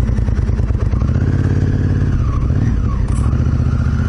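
Honda Africa Twin CRF1000L's parallel-twin engine running at low revs as the bike pulls away slowly. The pitch rises and falls a little as the throttle changes.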